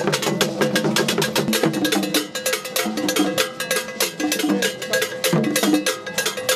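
Akan Akom drumming ensemble playing: hand drums such as apentema over a fast, dense rhythm of struck iron-bell strokes, accompanying the priestess's dance.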